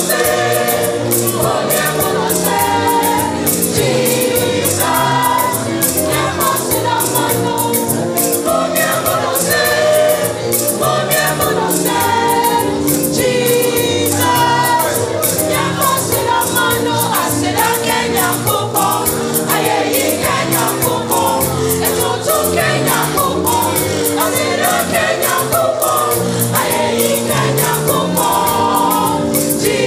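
Gospel choir singing with band accompaniment over a steady drum beat.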